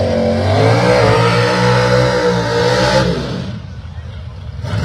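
Drag car doing a burnout: the engine is held at high revs with the rear tyres spinning and hissing, then eases off about three seconds in. A short rev follows near the end.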